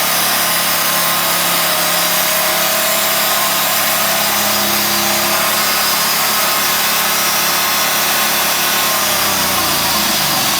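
Engine-driven sawmill cutting through a mesquite log: a steady engine note under the saw's hiss as the blade runs through the wood. Near the end the engine note drops.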